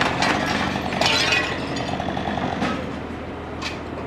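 A firefighter's petrol chainsaw running under several sharp breaking and cracking crashes as wood and glass give way.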